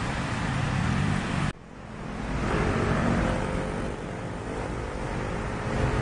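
Road traffic on a wet road: steady tyre and engine noise that cuts off suddenly about a second and a half in, then a car passes, its sound swelling and fading away.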